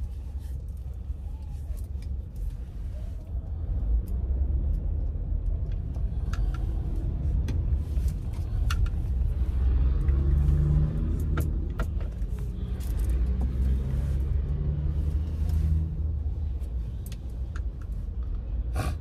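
Car cabin noise while driving: a steady low rumble of engine and road, with a few light clicks and ticks scattered through it.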